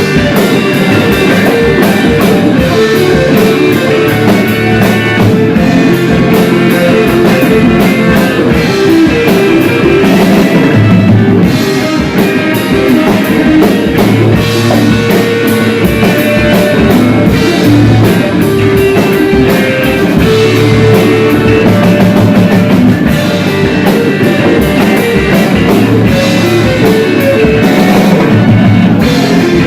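Loud rock music with a drum kit and electric guitar, playing steadily without a break.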